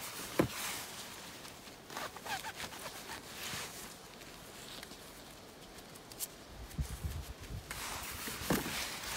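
Irregular rustling and crunching of footsteps moving through forest undergrowth, with a sharp click about half a second in. A low rumble on the microphone runs through the last couple of seconds.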